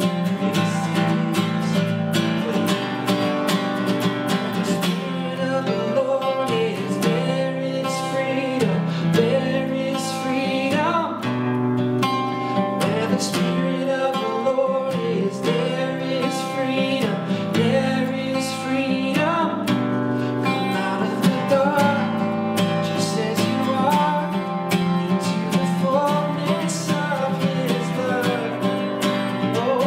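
A man singing a worship song while strumming an acoustic guitar, with steady, even strumming under the sung melody.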